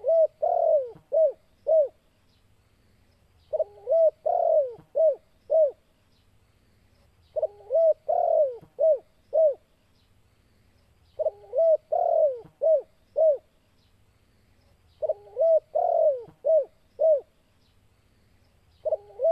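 Male spotted dove (tekukur) singing its cooing song, the same phrase repeated about every four seconds: a short lead-in, one longer drawn-out coo, then three short coos. It is the loud, persistent song of a male in breeding condition challenging a rival.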